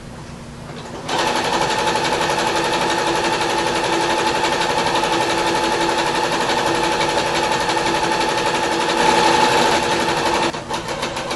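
Electric home sewing machine running at speed, its needle stitching through three layers of wool blanket. It starts about a second in, runs steadily, then slows near the end to separate, rapid stitches.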